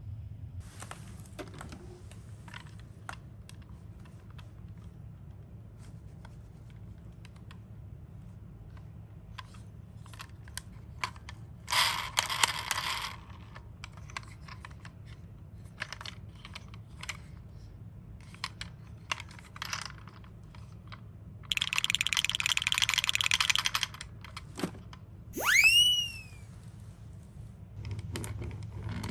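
Small toy cars being handled and run: scattered light plastic clicks, a short rattle about twelve seconds in, a steady whirring buzz for about two seconds later on, then a brief high whistle-like tone that rises and falls.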